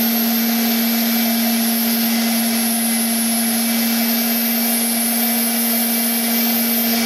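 Chicago Power Tools flex shaft grinder running at a steady speed, a steady hum with a faint high whine, as its diamond-coated bit grinds a hole into fused glass under water.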